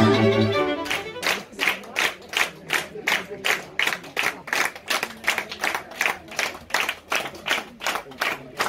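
A string quartet's final chord, held over a low cello note, cuts off about half a second in. Then an audience applauds, led by close, even clapping at about three claps a second.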